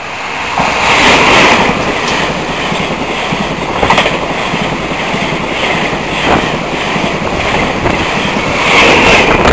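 Taiwan Railways push-pull Tzu-Chiang express (E1000 set) passing through the station at speed close by: a steady loud rush of wheels on rail and air, with a couple of sharp clacks as wheels cross rail joints.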